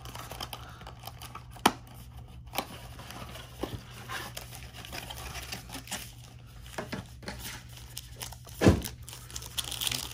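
Cardboard trading-card blaster box being opened by hand and its foil card packs handled and torn open, with crinkling and rustling and scattered clicks. A sharp tap comes about two seconds in and the loudest knock near the end.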